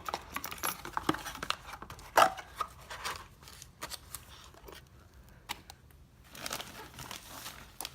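Packaging rustling and crinkling as items are unwrapped and handled, with scattered small clicks and knocks. A sharp click about two seconds in is the loudest sound, and the handling goes quieter for a couple of seconds before the rustling picks up again near the end.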